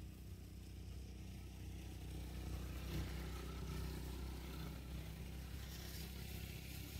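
Faint low engine hum of a vehicle running somewhere off-picture, steady with a slight swell in the middle.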